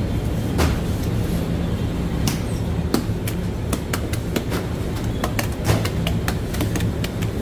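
Bakery machinery running with a steady low hum, with scattered sharp clicks and knocks throughout.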